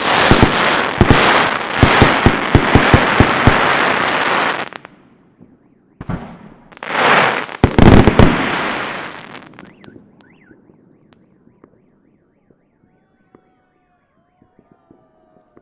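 Fireworks volley: dense crackling with repeated sharp bangs that cuts off about five seconds in. After a short gap a second burst of crackle and heavy bangs comes, loudest around eight seconds, and dies away by ten seconds. Then only faint scattered pops remain, with faint rising and falling alarm-like tones in the distance.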